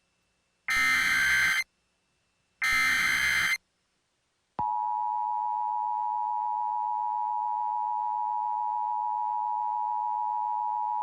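Emergency Alert System SAME header: two harsh digital data bursts about a second long, a second apart, the last two of the three-burst header. About four and a half seconds in, the steady two-tone EAS attention signal starts, the warning tone that opens an alert message.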